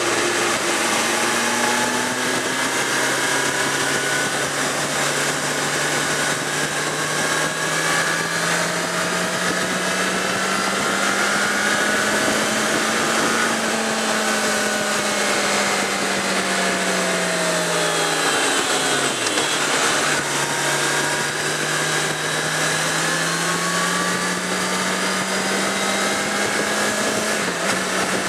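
Suzuki GSX650F motorcycle's inline-four engine under way, heard on board over steady wind noise. Engine speed climbs slowly, falls steeply about two-thirds of the way through, then climbs again, with a short step down in pitch near the end.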